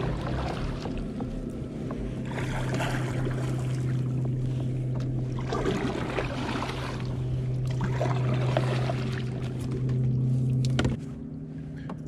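Electric trolling motor on a fishing kayak running with a steady low hum that stops suddenly near the end, with water washing along the hull.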